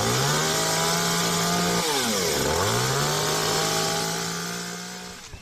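Two-stroke chainsaw running at high revs. The engine pitch drops and climbs back up about two seconds in, then holds high before fading near the end.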